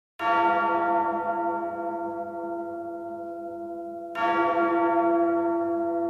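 A large bell struck twice, about four seconds apart, each stroke ringing on and fading slowly.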